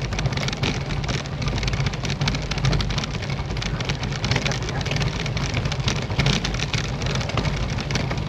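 Riding noise from a Specialized Tarmac SL7 road bike picked up by a handlebar-mounted camera: a steady low wind rumble with a dense, continuous rattle.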